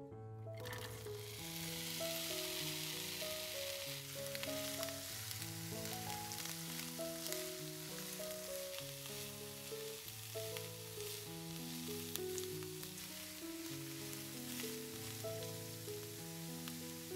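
Chopped onions sizzling in hot oil in a nonstick frying pan while being stirred with a spatula. The sizzle starts suddenly about half a second in, as the onions go into the oil, and keeps up steadily.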